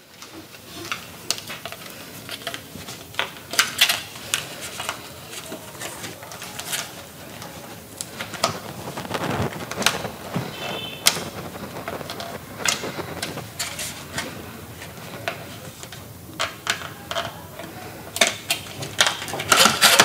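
Irregular clicks and crinkles of packaging being handled by hand as DDR4 memory sticks are taken out of their wrapping.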